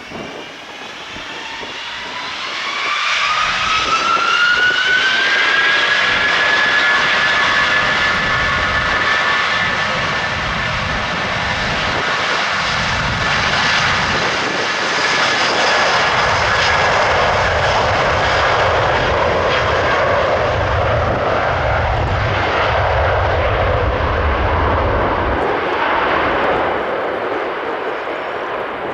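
Jet airliner's engines at high thrust: a fan whine rises over the first few seconds and then holds steady over a loud, even roar, typical of a spool-up for takeoff. A deeper rumble joins in the second half and fades near the end.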